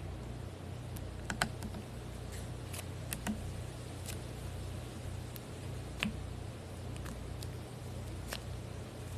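Slime being handled: scattered sharp clicks and pops, a few a second at most, over a steady low hum.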